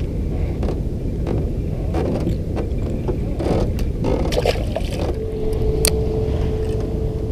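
Wind rumbling on the microphone outdoors on the water, with scattered small clicks and knocks; a steady hum comes in about five seconds in.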